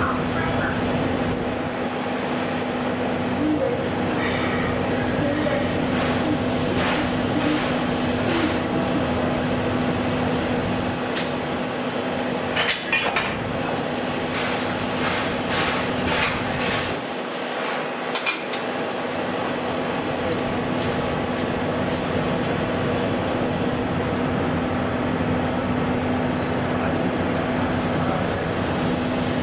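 Steady hum and hiss of a standing locomotive, with a few sharp metallic clinks and knocks about halfway through.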